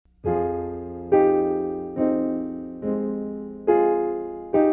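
Piano music: slow chords struck about once a second, each left to ring and fade before the next.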